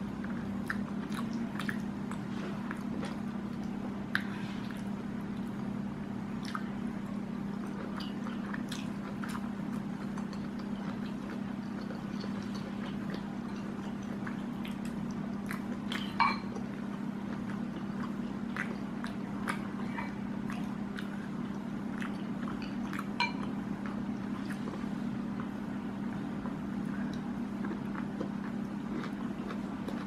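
Close-miked mouth sounds of a person eating rice and spicy squid by hand: chewing with scattered short wet clicks and smacks, and one sharper smack about sixteen seconds in. A steady low hum runs underneath.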